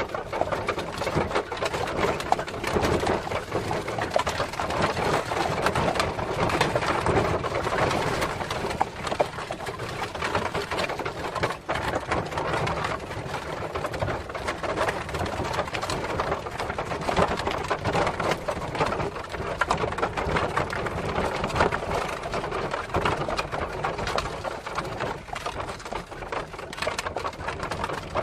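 Horse-drawn cart on the move: hooves clip-clopping and the cart rattling and clattering steadily.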